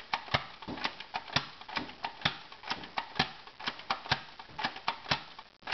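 Nerf Dart Tag blaster being worked, a quick irregular run of sharp plastic clicks, several a second.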